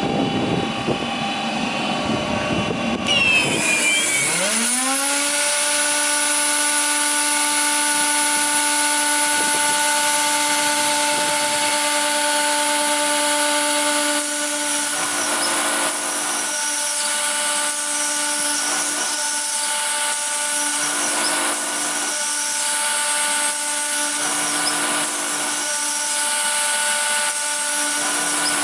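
Aldinger spindle moulder running: the cutter head's whine bends in pitch and settles to a steady note about four seconds in, then holds at speed. From about halfway, several stretches of rough cutting noise come and go over the whine, as wood is fed past the cutter.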